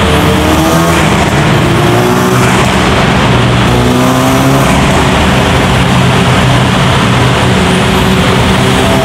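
Ford Focus RS MK3's turbocharged 2.3-litre four-cylinder, fitted with an Armytrix exhaust, running loud and steady under way, heard from inside the cabin in a tunnel. Its note rises a little several times.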